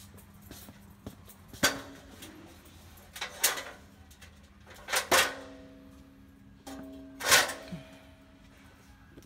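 Goods and metal objects being knocked and moved about: about four loud clatters at roughly two-second intervals, the later ones leaving a short metallic ring.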